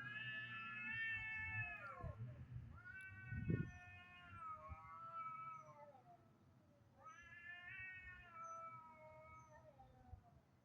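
Cat yowling: three long, drawn-out wails, each rising and then sliding down in pitch.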